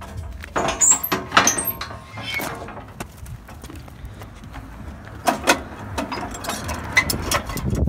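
Metal clanks and rattles from a U-Haul car tow dolly as its tire straps and steel wheel platforms are handled, with several sharp knocks and a brief metallic ring about a second in.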